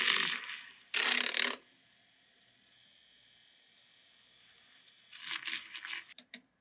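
Handheld battery milk frother whisking a milky drink in a glass: loud hissing, churning spells at the start, about a second in and again near the end, with a fainter steady run between them.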